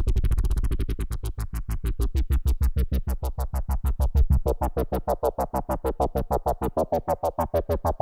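Parawave Rapid granular synth playing its 'Wobble Mod Wheel' dirty bass preset: one held low note chopped into a fast wobble of about eight pulses a second. From about halfway through, the wobble turns brighter and more nasal in the midrange.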